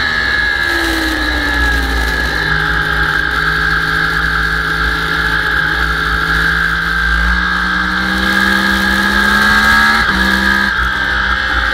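Sport motorcycle engine on track, heard from an onboard camera. The revs fall over the first couple of seconds while braking into a corner, then climb steadily on the way out, with an upshift about ten seconds in. Heavy wind buffeting on the microphone runs underneath.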